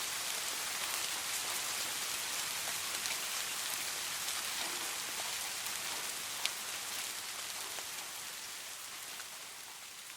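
Soft rain falling steadily, with many small individual drop ticks and one louder tick about two-thirds of the way through. It slowly fades down over the last few seconds.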